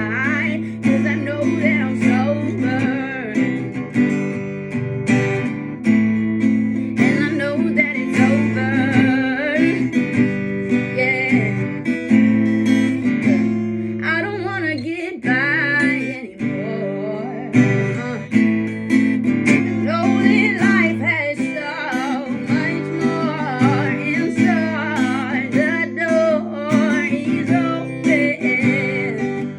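Acoustic guitar strummed in a steady chord progression, with a voice singing over it. The playing thins briefly about halfway through.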